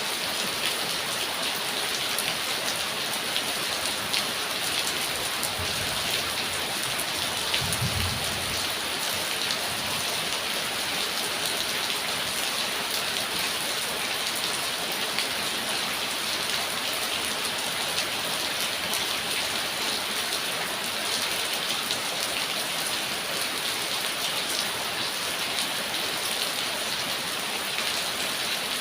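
Steady rain falling, a dense hiss with the fine ticking of drops hitting surfaces. A brief low rumble comes in about six seconds in and again around eight seconds.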